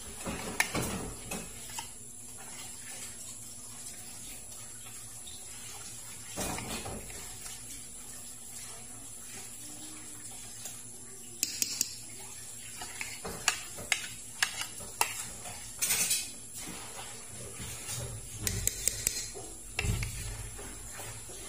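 Metal spoon clinking and scraping against a stainless steel pot while grated cheese is shaken onto spaghetti. The sharp knocks are scattered, with a few early on and many more in the second half.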